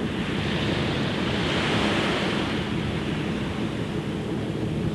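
Small waves washing onto the shore, one swelling up about two seconds in, with wind rumbling on the microphone.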